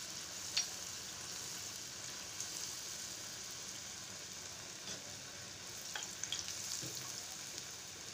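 Nei appam batter deep-frying in hot oil in a kadai: a steady sizzle as the first side cooks. A few light clicks come from the perforated metal ladle moving in the oil against the pan.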